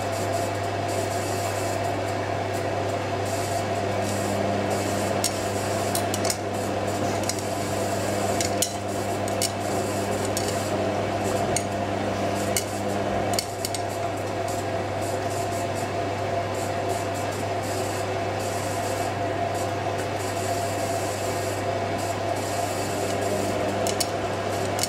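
IKEA RENLIG IWM60 washing machine tumbling its load while water fills for the final rinse: a steady motor hum with a rubbing, rasping sound and scattered light clicks. An extra low tone joins about four seconds in and stops about halfway through.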